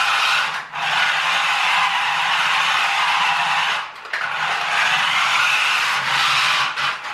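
Small electric drive motors and plastic gearbox of a toy-grade radio-control truck running flat out on a 2S LiPo, with the tyres scrabbling for grip on a hard floor. The drive cuts out briefly three times, about a second in, at about four seconds and near the end, as the throttle is let off.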